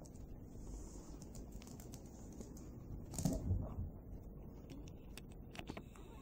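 A Yorkshire terrier's claws clicking and scrabbling faintly on a hardwood floor as it dashes about. There is a soft thump about three seconds in as it jumps up onto the couch.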